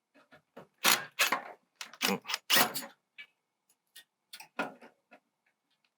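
Short bursts of clatter and scraping, with scattered clicks, as the bracket of an automatic vent opener is handled and screwed on at the bottom.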